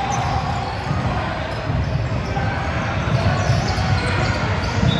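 Basketball bouncing on a gym floor, with indistinct voices in the background.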